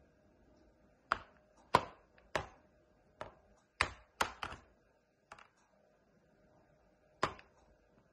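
A galah tapping and knocking on the plastic lid of a closed laptop: about nine sharp knocks at uneven intervals, several in quick succession around the middle.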